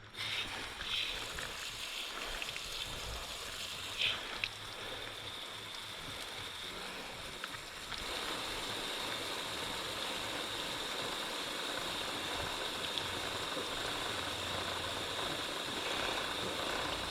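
Water spraying steadily onto a motorcycle's chain and rear wheel, rinsing off the soaked-in chain cleaner and dissolved grease. The spray gets louder about halfway through.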